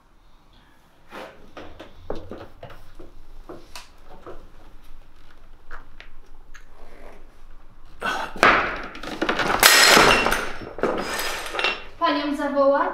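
Scattered knocks of objects handled on a wooden table, then a loud clattering crash that lasts a few seconds, as if things are knocked over. Near the end comes a short vocal cry.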